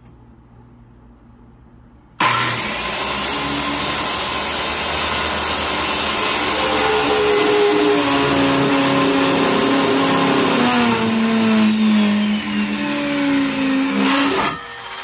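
Circular saw switched on about two seconds in, running and cutting a clamped wooden board for about twelve seconds with a high whine over the cutting noise, its pitch dropping a little in the last few seconds, then switched off near the end.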